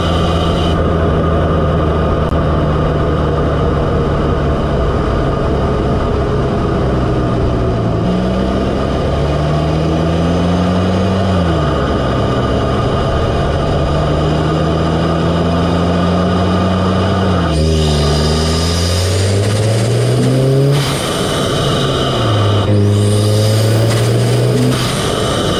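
Audi S3's turbocharged 2.0-litre four-cylinder heard up close through an APR carbon-fibre open cone intake: the engine runs steadily, then over the second half its pitch climbs and drops suddenly four times, like upshifts under acceleration. During the last two climbs a loud induction and turbo rush rises over the engine note.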